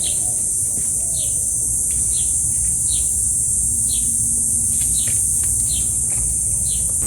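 Insects droning in a steady high buzz, with a bird repeating a short falling chirp about once a second, over a low background rumble.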